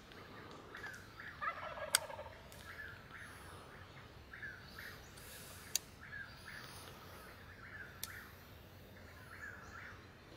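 Birds calling in the open, with a wild turkey gobbling in the distance about a second and a half in. A few sharp clicks come from a small hand wrench being worked on a compound bow's sight.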